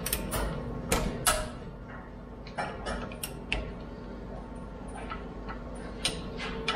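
Half-inch ratchet clicking in short irregular strokes as it tightens the rear differential fill plug, over a steady low hum.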